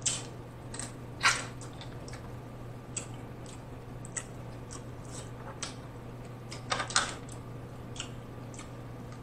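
Close-up eating sounds of seafood boil: wet smacks and squishes of chewing, with scattered short clicks as fingers dip food into the sauce. The loudest smacks come about a second in and around seven seconds.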